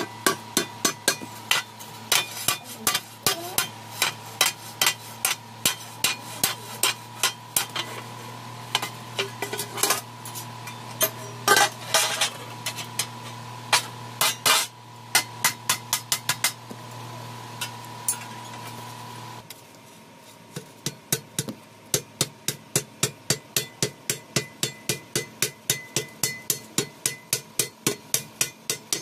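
A hand hammer strikes red-hot iron plate on the anvil block in a steady run of blows, about two to three a second, forging and bending the plate's edge. A steady hum runs under the hammering and stops about two-thirds of the way through, after a short pause in the blows.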